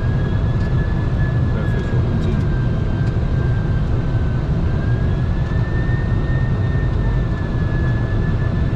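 Boeing 747-400 freighter flight deck noise on final approach: a steady, even rush of airflow and engine noise, with a thin high whine that slowly wavers up and down in pitch.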